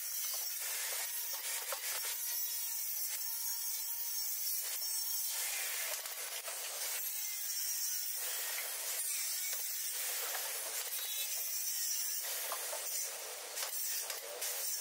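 Dry rubbing and scraping of upholstery work: velvet fabric being pulled and smoothed by hand over a padded sofa frame. The noise comes and goes in stretches of a few seconds.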